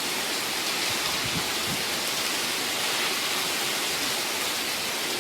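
Rain falling steadily during a thunderstorm, an even, unbroken hiss.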